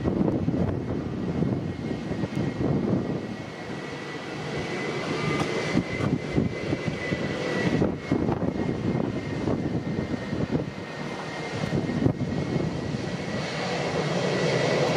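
Airbus A320-232's IAE V2500 turbofans at taxi power, a steady high whine over a rumble, as the jet taxis past. Gusty wind buffets the microphone throughout.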